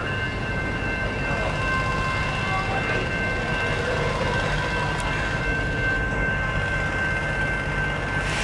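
Schnabel heavy-load railcar rolling slowly past on its many-axle trucks: a steady low rumble, with thin steady high-pitched ringing tones over it.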